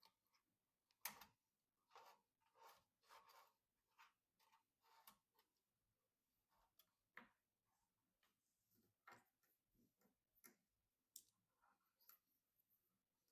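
Near silence with faint, irregular clicks and light taps, about one or two a second, from small computer parts being handled during a PC build.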